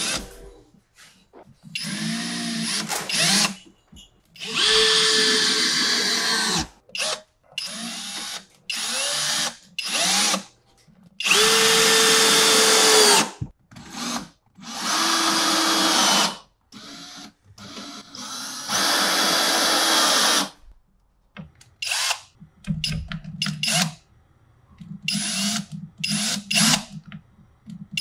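Battery-operated power drill driving woodscrews into plywood and lumber in a series of separate runs, most lasting one to two seconds, with short trigger blips between them. The motor's whine climbs as each run starts and drops away as the trigger is released.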